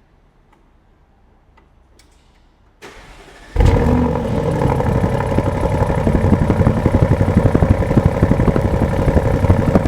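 Audi performance car engine started up: a short burst of cranking about three seconds in, then it fires loudly and keeps running steadily with a fast pulsing exhaust note.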